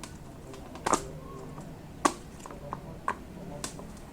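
Pop-it fidget toy bubbles being pressed, giving sharp popping clicks about once a second, with a few fainter clicks between.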